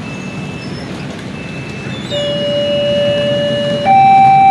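LEN railway level-crossing warning buzzer sounding its two-tone 'piipp piipp' alarm for an approaching train. It starts about halfway in on a lower tone, then switches to a higher, louder tone, over the hum of motorbikes and road traffic.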